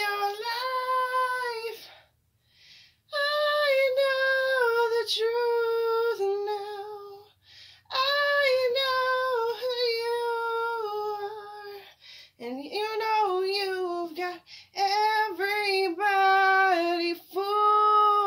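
A woman singing solo in four long phrases of held notes, with short pauses for breath between them.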